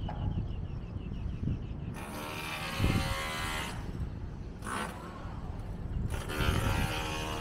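A motor buzzing, rising twice for a second or two each time, over a steady low rumble.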